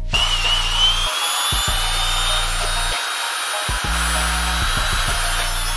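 Small angle grinder with a cut-off disc cutting through a braided rubber oil hose. The motor's high whine starts right away, rises briefly and then holds steady, with a hip-hop beat underneath.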